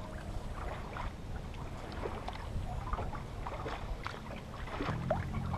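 Water splashing and gurgling along the hull of a small sailboat under way, in a steady low rush with many small splashes. Background music comes back in near the end.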